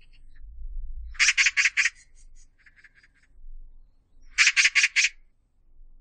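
Oriental magpie giving harsh chattering calls: a loud rapid run of four or five notes about a second in, a softer short chatter after it, and a second loud run of four or five notes near the end.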